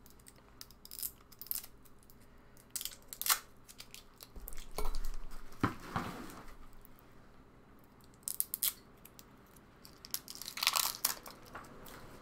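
Plastic shrink-wrap seal being torn and peeled off the cap of a Frank's RedHot bottle: irregular crinkling and crackling in short bursts, with a few pauses between.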